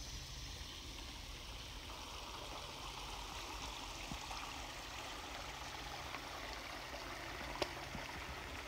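Steady rushing of a creek flowing, with a single faint click about seven and a half seconds in.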